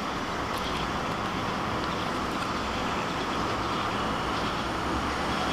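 Steady background noise, an even hum and hiss with no distinct events.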